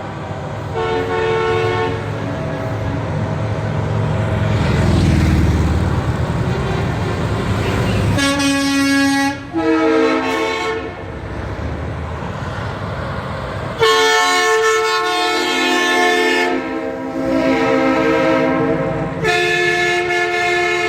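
Air horns on semi-truck race-car haulers blasting in several long, multi-note honks, about four in all. Between them a diesel truck engine rumbles past, loudest a few seconds in.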